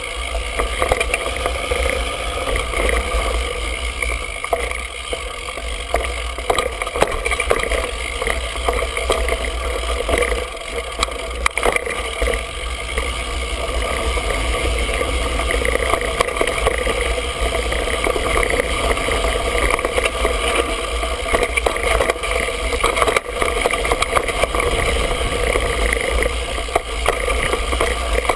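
Mountain bike riding dirt singletrack, picked up by a handlebar-mounted GoPro: a constant rumble of tyres and wind with many small knocks and rattles from the bike over rough ground.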